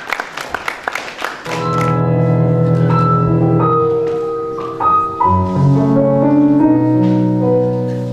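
Applause with distinct claps for about the first second and a half, then keyboard music starts: held chords under a slow melody, the instrumental introduction to a song.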